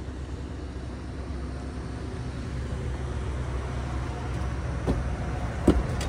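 Steady low rumble of a motor vehicle running nearby, with two short sharp knocks near the end, the second one the loudest.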